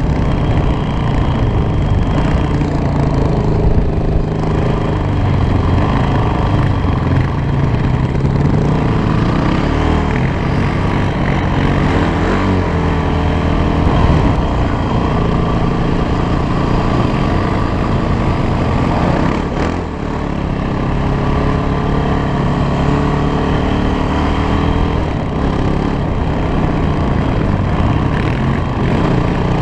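Single-cylinder four-stroke engine of a 2008 Honda TRX450ER sport quad with a piped stock exhaust, running under load. Its pitch rises and falls as the throttle is worked, with a brief drop in level about two-thirds of the way through.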